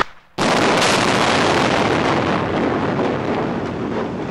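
Explosive demolition of a steel truss bridge: a sudden loud blast about half a second in, followed by a long rushing rumble of the collapsing steel and debris falling into the river that slowly fades.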